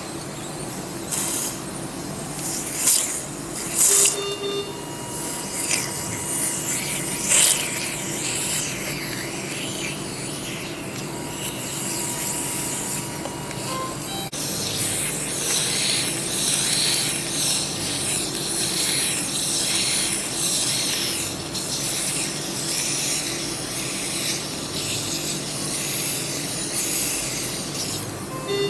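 Operating-theatre sound: surgical suction hissing in irregular bursts, denser in the second half, over a steady hum of theatre equipment, with a short beep about four seconds in and another at the very end.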